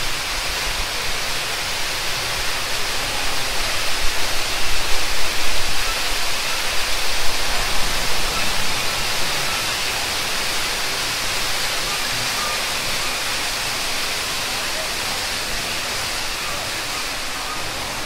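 Steady rush of falling water from an artificial show-scene waterfall. It is a little louder in the first half and eases off slightly toward the end.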